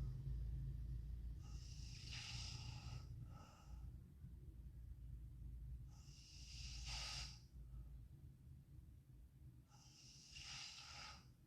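A sleeping girl breathing noisily in her sleep: three hissing breaths about four seconds apart, over a low steady rumble.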